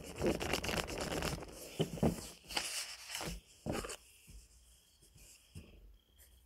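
Rubber eraser rubbing back and forth over drawing paper, with several light knocks on the tabletop; the rubbing dies down about four seconds in.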